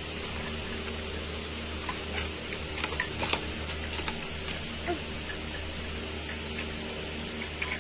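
Steady low hum of room tone, with a few faint taps and clicks scattered through it.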